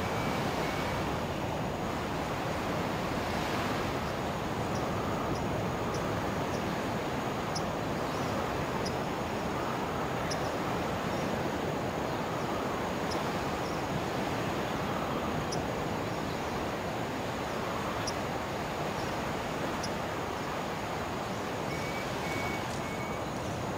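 Steady rushing background noise outdoors, with faint high ticks about once a second.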